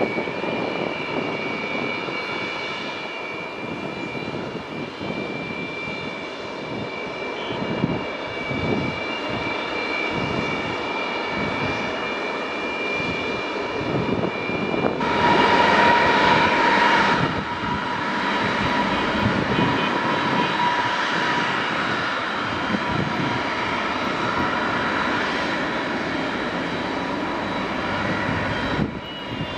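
Antonov An-124's four Progress D-18T turbofan engines running at taxi power, a steady jet rush with several high whining tones. The noise swells for about two seconds roughly halfway through.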